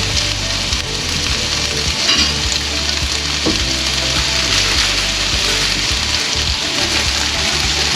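Vegetables sizzling steadily in a hot pan as they are stir-fried, with a short knock of the utensil against the pan about two seconds in.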